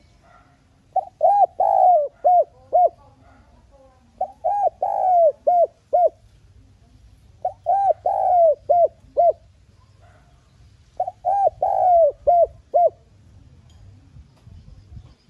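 Spotted dove singing its cooing song: four phrases of about six arched notes each, two quick coos, a longer one and three quick ones, repeated every three to four seconds.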